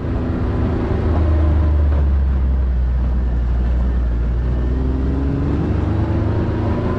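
A vehicle's engine pulling steadily along a gravel dirt track, with tyre and road noise and a loud low rumble; the engine note rises near the end.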